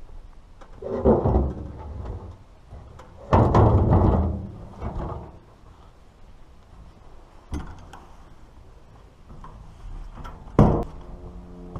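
A few heavy thuds and clunks. The loudest and longest comes about three and a half seconds in, and there is a sharp knock near the end.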